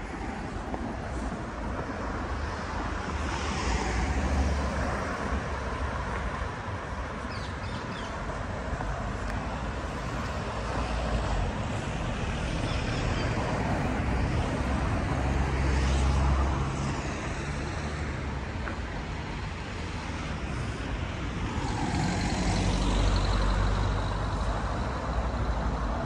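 Street traffic: vehicles driving past one after another, with engine rumble swelling as they pass about four, sixteen and twenty-three seconds in.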